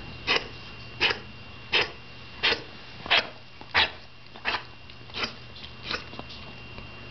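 A dog coughing in a steady series of short, harsh hacks, about nine in a row roughly every 0.7 seconds, growing weaker near the end. It is a cough the dog developed after swimming in rivers, a bay, the ocean and a lake.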